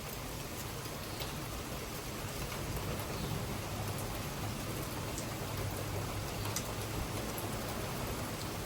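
Heavy rain pouring down in a thunderstorm, a steady hiss of rain with a low rumble of wind in it, a little stronger in the middle.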